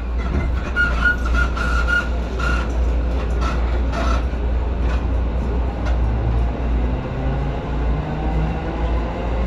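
JR Keiyo Line electric train running, heard from inside the carriage: a steady low rumble of wheels on rail. A high tone comes and goes in the first couple of seconds, and a low hum rises in pitch from about six seconds in.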